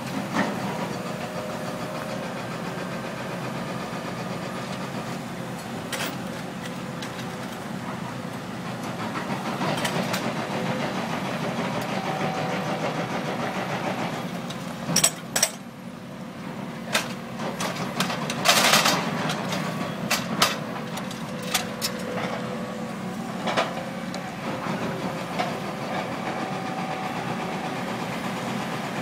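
Engine of a small paver-laying machine with a Probst clamp running steadily as it drives. About halfway through come a series of sharp metallic clanks and knocks and a short rushing burst.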